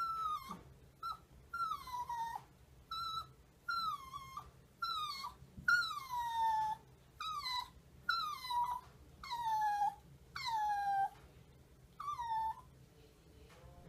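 Toy poodle whining: about a dozen high-pitched whines in quick succession, each sliding down in pitch, the later ones drawn out longer, stopping shortly before the end.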